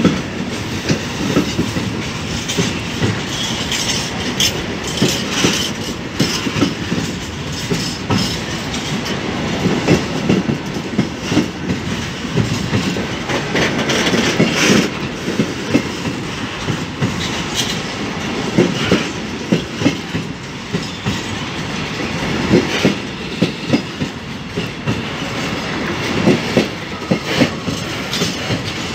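Empty rail-transport freight wagons rolling past close by, their wheels clacking over rail joints in an uneven rhythm over a steady rumble.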